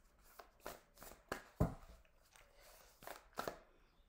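A deck of tarot cards shuffled by hand, with packets slid and dropped from one hand onto the other. It makes a run of soft, irregular card flicks and slaps, with one heavier knock about one and a half seconds in.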